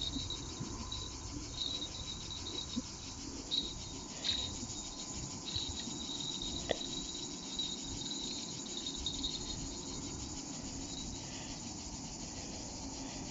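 A steady chorus of insects chirring in summer heat: a dense, high, finely pulsing buzz over a low rumble.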